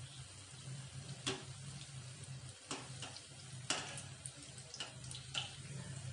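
Medu vadas sizzling gently in hot oil in a kadai, with a few light clicks as a wire mesh skimmer touches the pan. A steady low hum runs underneath.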